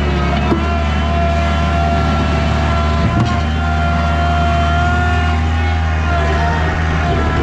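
Bobcat skid steer engine running at steady revs, with a strong low hum and a faint knock or two.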